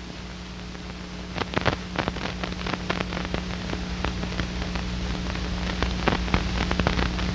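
Old optical film soundtrack noise: a steady low hum and hiss with frequent, irregular crackling clicks and pops.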